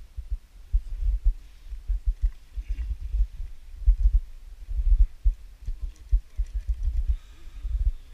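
Irregular low rumbling thumps buffeting the microphone, several a second.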